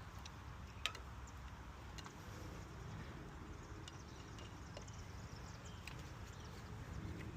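Faint scattered clicks and taps of hand tools working on the winch cable's bolted end, with one sharp click about a second in, over a low steady rumble.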